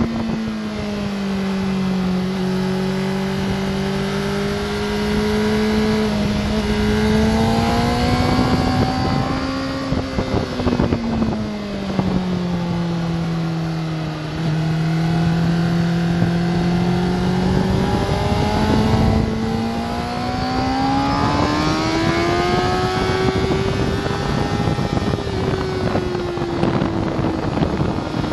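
Onboard sound of a sport motorcycle's engine at track speed, with wind rushing past. The engine note falls as the bike slows into a corner, holds low through it, then climbs again as it accelerates out, with a brief break at a gear change.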